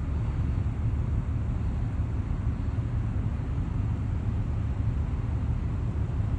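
Wind buffeting the microphone: a steady, unbroken low rumble with no clear tone.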